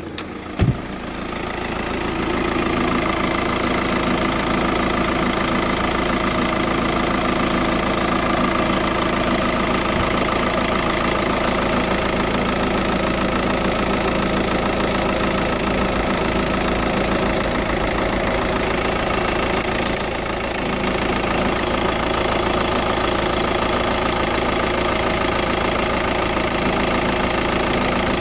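TDI turbo-diesel engine idling steadily with a ticking noise. A single sharp knock sounds about a second in.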